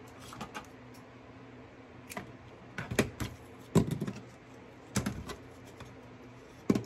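Irregular clicks and knocks of craft supplies, ribbon spools and small tools, being picked up, handled and set down on a worktable, with the loudest knocks about four seconds in and near the end.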